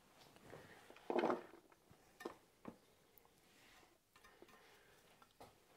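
Quiet kitchen handling sounds: chopped spring onions being moved from a wooden cutting board into a plastic container with a knife. There is a short louder rustle about a second in, then a few light clicks.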